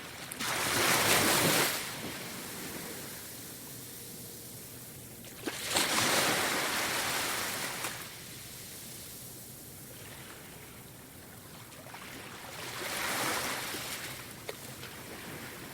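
Ocean waves breaking on the shore: three separate waves crash and wash in, about a second in, around six seconds in and near the end, with a steady lower surf hiss between them.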